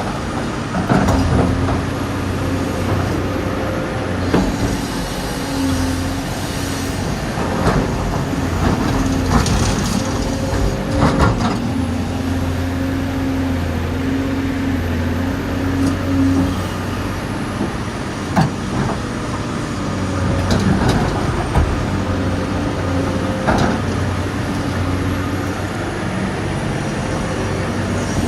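Dubbed-in recording of a full-size excavator's diesel engine running steadily, swelling and easing as the machine works, with scattered sharp knocks and clanks.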